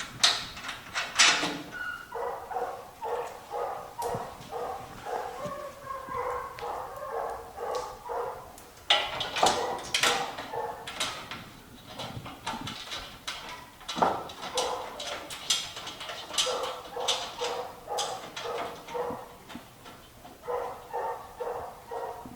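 Repeated short pitched animal calls, about two a second, with scattered sharp knocks and clanks from work on the Jeep's front fender, loudest near the start and around the middle.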